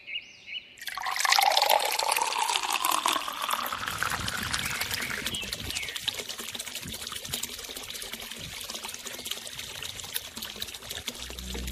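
Water poured from a plastic bottle into a small plastic funnel and trickling through toy plastic pipes into a plastic bowl, starting suddenly about a second in. The pour carries a rising note for the first few seconds, then settles into a steady trickle.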